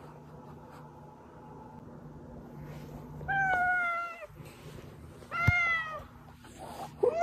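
Domestic cat meowing: two drawn-out meows, about three and a half and five and a half seconds in, each under a second and holding a level pitch, with a third starting just at the end. A faint low hum lies underneath.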